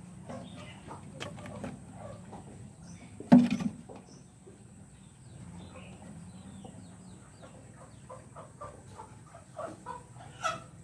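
Short clucking calls, coming faster and thicker in the last few seconds. About three seconds in there is a single sharp knock, the loudest sound.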